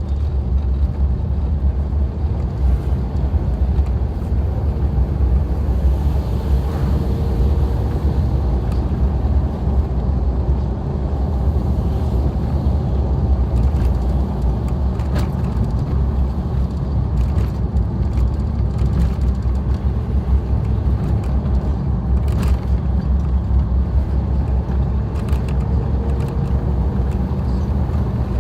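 Suzuki Jimny driving along a forest road: a steady low rumble of engine and running gear, with a few light clicks and knocks here and there.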